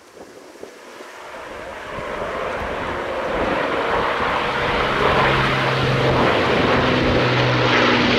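Avro Lancaster's four Rolls-Royce Merlin piston engines running as the bomber flies overhead. The steady propeller drone grows louder over the first few seconds and then holds.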